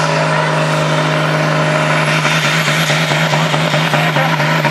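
Diesel engine of a pulling tractor running hard, a steady deep note with a faint high whine slowly rising in pitch.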